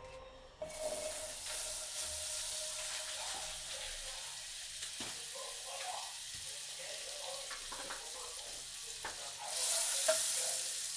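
Butter sizzling in a hot non-stick frying pan, a steady hiss with small pops that starts about half a second in. Near the end it gets louder as a spatula pushes the melting butter around the pan.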